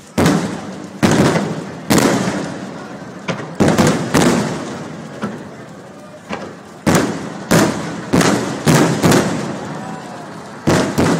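Aerial firework shells bursting overhead one after another: a dozen or more sharp bangs, each dying away in a long rumble, coming fastest in a quick run about two-thirds of the way through.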